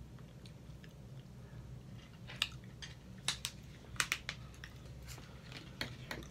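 Eating sounds: chewing, with scattered sharp clicks of forks against a foil pan and teeth, over a steady low hum.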